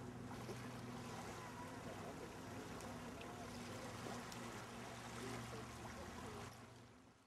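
Faint open-air background noise over water: a steady low hum under an even hiss, fading out near the end.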